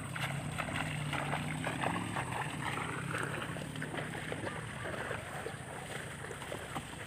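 Bare feet splashing and squelching through shallow muddy water and wet mud in irregular small splashes, easing off over the second half, over a steady low hum.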